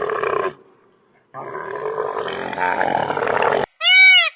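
A big cat roaring: a roar trails off about half a second in, and after a short pause a second, longer roar follows. Near the end it cuts to a different animal's loud, high-pitched call that rises and falls in pitch.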